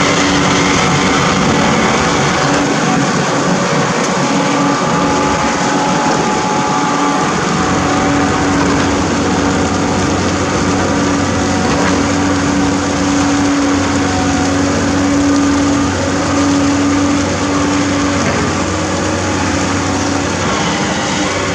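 Amphibious backhoe's engine running steadily as the machine moves through the river, a loud continuous mechanical noise with a steady hum.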